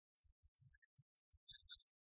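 Near silence, with faint, scattered short low thumps and high crackles.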